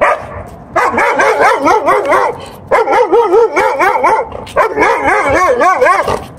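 German Shepherd giving rapid, high-pitched yipping and whining cries, each rising and falling in pitch, in three long runs with brief pauses between them.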